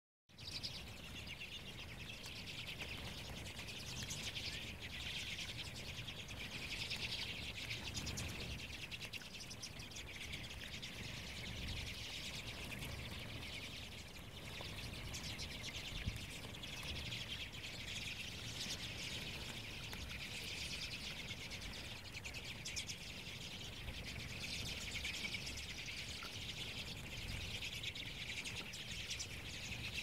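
A large flock of redpolls chattering and twittering without a break, many calls overlapping into a continuous high chorus that swells and eases. A low rumble runs underneath.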